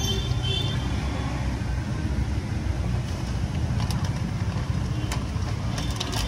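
Steady roadside traffic rumble, with a short high tone just after the start and a few sharp clicks near the end.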